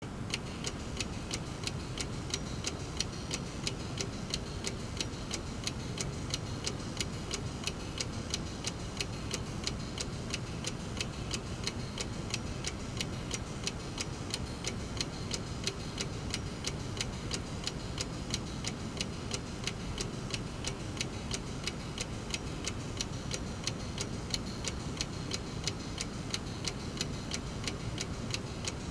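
Brass mechanical clock movement with a balance escapement, not a pendulum, ticking evenly and rapidly, a few ticks a second, over a steady low background noise.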